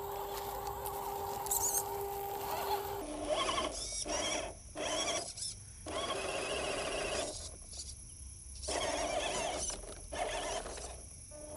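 Small electric motor and gearbox of a 1/12-scale MN78 RC car whining, first steadily, then in stop-start bursts as the throttle is worked.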